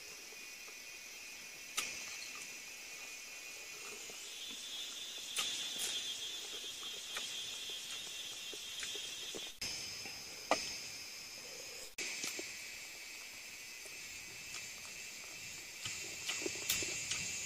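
Steady high-pitched chirring of insects in the surrounding vegetation, with a few sharp clicks and taps scattered through it.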